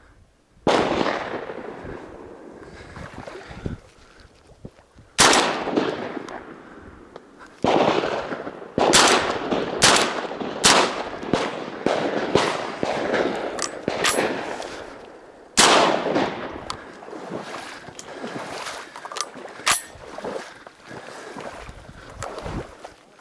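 A ragged volley of shotgun shots from several duck hunters firing at ducks, about fifteen shots over twenty seconds at irregular intervals. Some are loud and close and others fainter, and each trails off over a second or so.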